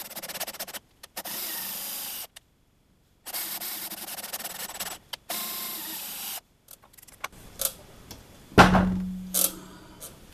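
Cordless drill driving a bottom tap to thread holes in a metal flat bar, the motor running in several short runs of a second or two each. About eight and a half seconds in, a loud knock that rings briefly, then a smaller knock.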